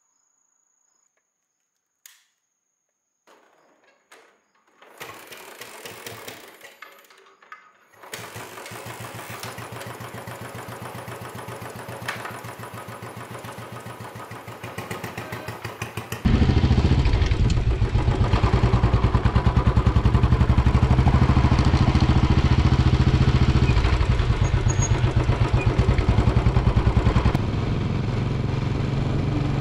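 Royal Enfield Classic 500's single-cylinder engine starting and idling after a few quiet handling clicks, then about halfway through turning much louder and steadier as the motorcycle is ridden.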